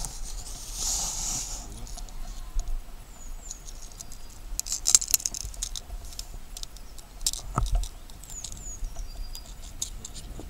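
Light water splashes and drips with scattered small clicks and knocks as a pike is handled at the side of a canoe, with brief louder splashy spells about a second in and about halfway.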